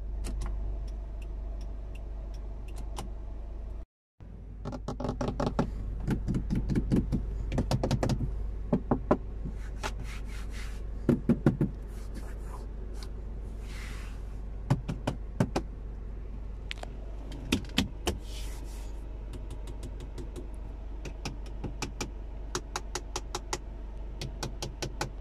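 Fingers tapping and knocking on the hard plastic dashboard and centre-console panels of a 2010 Kia Forte SX: many short clicks and knocks, some in quick runs, the loudest near the middle. A steady low hum from the idling engine runs underneath.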